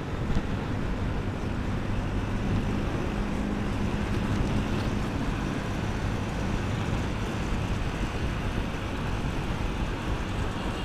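Motorcycle riding at a steady cruising speed: an even engine hum under wind noise on the microphone.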